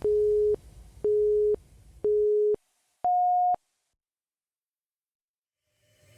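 Workout interval-timer countdown beeps: three short, identical tones a second apart, then a fourth, higher tone marking the switch between exercise and rest. The background music stops just before the last beep.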